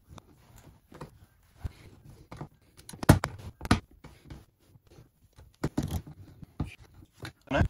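Screwdriver working stubborn screws out of a metal differential access cover: scrapes and clicks of the blade in the screw heads, with a few sharper knocks, the loudest about three seconds in and again near the end. The screws are tight and take effort to shift.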